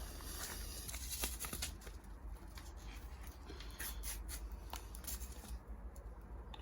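Paper seed packet of carrot seed being opened and handled: crinkling with a scatter of sharp little clicks and snips.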